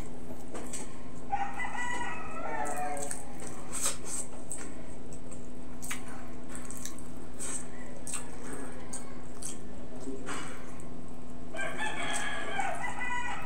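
A rooster crows twice, about a second in and again near the end, each crow about two seconds long. Between the crows come many short wet clicks of close-up chewing and lip-smacking, over a steady low hum.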